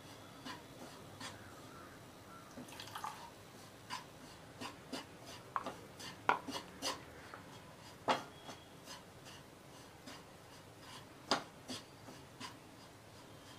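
Wooden spatula stirring and pressing a crumbly browned milk-powder mixture in a nonstick pan: faint, irregular scrapes and light taps against the pan.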